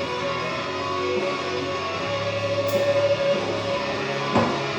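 Rock music with guitar playing steadily, with one short knock a little past four seconds in.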